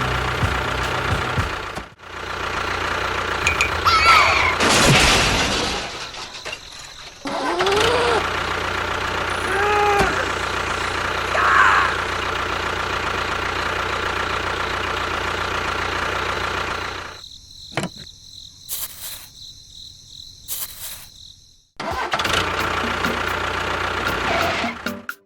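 A vehicle engine running steadily with a low, even hum, with several short squealing glides over it. About seventeen seconds in it cuts out, leaving a few sharp clicks, and it starts again near the end.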